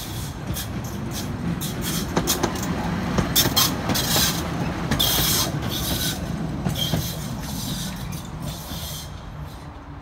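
A 71-619KT tram passing on an open track, with a low running rumble and a string of sharp wheel clacks over the rails. It grows louder towards the middle as it goes by, then fades as it moves away.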